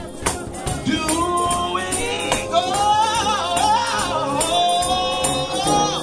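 Gospel music: voices holding long, wavering notes over tambourine and a steady beat.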